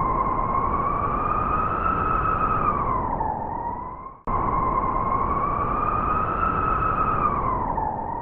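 A long howling tone over a rushing noise, rising a little and then dipping. It cuts off abruptly about four seconds in and the same howl plays again.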